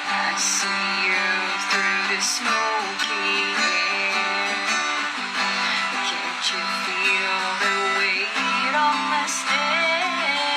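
Acoustic guitar strummed in steady chords, accompanying a person singing.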